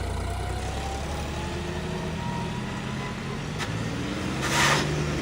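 Tractor diesel engine running under load, its pitch climbing from about two seconds in as it is revved. Near the end comes a short loud rushing hiss, the loudest moment.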